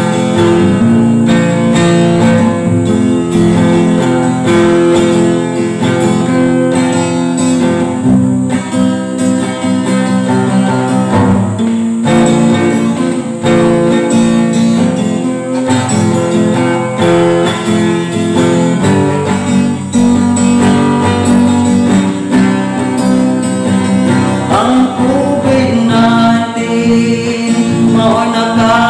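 Acoustic guitar strummed in steady chords, an instrumental stretch of the song. A man's singing voice comes in near the end.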